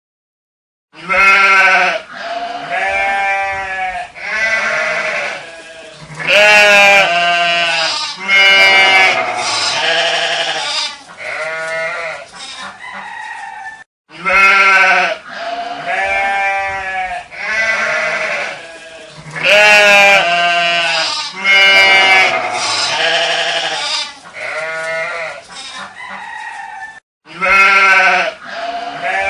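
Farm livestock bleating: a long series of loud, quavering calls one after another, stopping briefly about halfway through before a similar run of bleats starts again.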